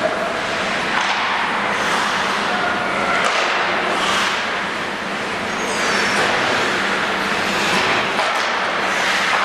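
Ice rink noise: skate blades swishing and scraping across the ice, over a steady low hum.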